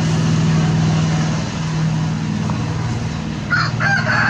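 A steady low engine-like hum runs throughout. About three and a half seconds in, a rooster starts crowing, one long call that carries on past the end.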